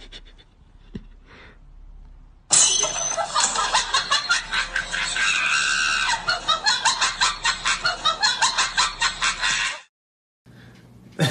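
A cat giving a long, loud run of rapid clucking calls, several a second. The calls start suddenly and cut off abruptly near the end.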